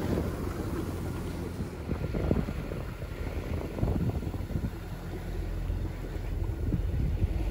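Wind buffeting the microphone over water rushing and splashing past a sailboat's hull in choppy sea, in uneven gusts.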